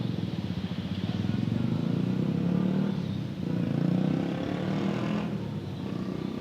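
Road traffic passing close by: a motor vehicle engine with a low, pulsing hum that grows louder through the middle and eases off near the end.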